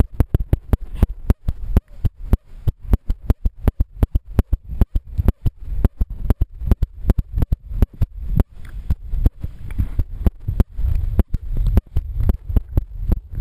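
Underwater noise through a submerged ION Pro action camera's microphone: a rapid, irregular crackle of sharp clicks and knocks, several a second, over a muffled low rumble.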